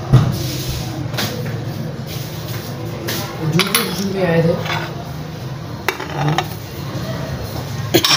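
Scattered clinks and knocks of metal against a steel cooking pot as spices and cut tomatoes are added to raw mince and onions.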